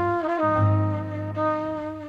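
Instrumental music led by a trumpet playing long held notes, changing note early on, over a low bass line.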